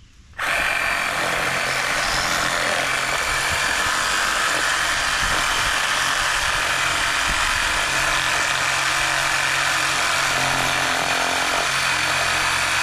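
Handheld power tool cutting through appliance metal: it starts suddenly about half a second in and runs steadily with a high whine.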